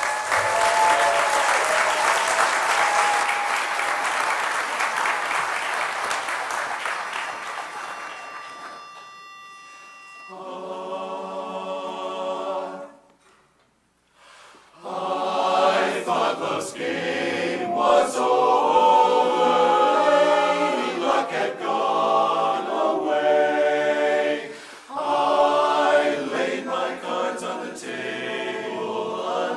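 Audience applause that fades over the first several seconds, then a short steady high tone. A men's barbershop chorus then sings a cappella in close harmony: one held chord, a brief pause, and the opening phrases of the song.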